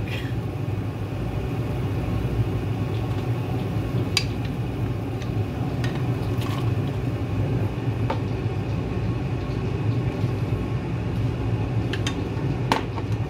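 Raw pork belly cubes pushed from a plastic bag into a pot of boiling broth with a wooden spatula, which knocks against the pot a few times. A steady low rushing noise runs underneath.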